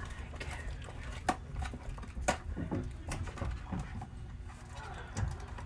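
Small cardboard box and packaging being handled: a few light clicks and taps, scattered irregularly over a low background rumble.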